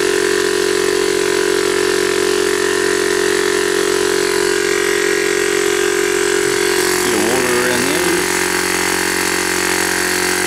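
Small 12-volt direct-drive piston air compressor running steadily, pumping air into its receiver tank, with an even, pitched motor-and-pump hum.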